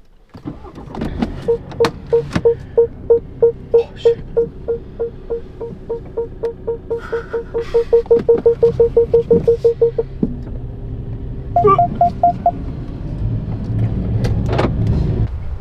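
A car's engine starting at the push of a start button, then idling. Over it comes a run of short beeps that quicken until they are almost continuous, typical of parking sensors as the car pulls out of a space, then a brief burst of higher beeps about twelve seconds in.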